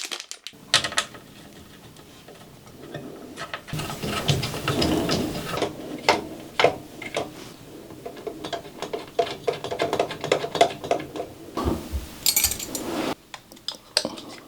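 Small metal and plastic parts of a CPU cooler's mounting kit handled and fitted: irregular clicks, clinks and rattles of brackets and screws, with a few rustling stretches.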